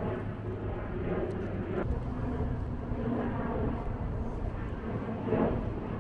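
Street traffic: a steady low engine hum from motor vehicles, swelling briefly near the end.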